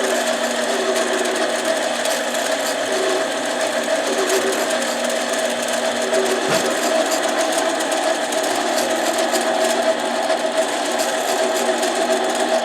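Small benchtop metal lathe running steadily with a constant motor hum while a chainsaw piston is worked in it.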